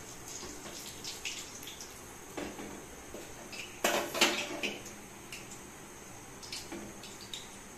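Hot mustard oil sizzling in a metal wok while fried chops are lifted out and drained in a wire skimmer, with metal clinks of the skimmer against the wok. The loudest are a few sharp clinks about four seconds in.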